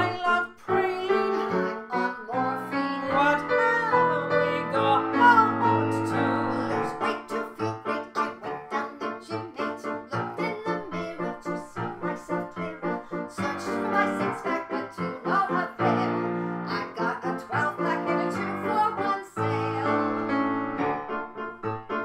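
Piano accompaniment in steady repeated chords with women singing a cabaret song over it; the voice is most prominent in the first few seconds.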